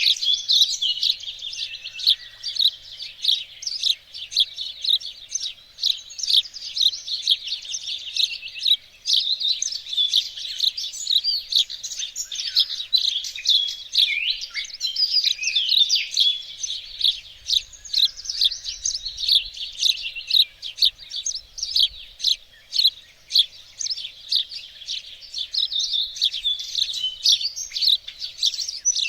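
Several songbirds singing and chirping at once in a dense, continuous chorus of quick high-pitched chirps and trills.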